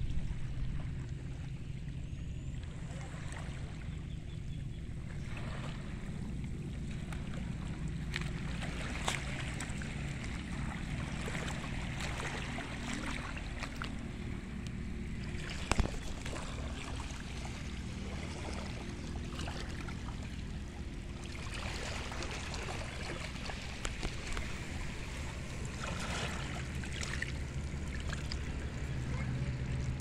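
Shallow seawater lapping and washing through seaweed over a rocky reef flat, with a hiss that swells and fades. A steady low rumble runs underneath, and there are a few sharp knocks, the loudest about 16 seconds in.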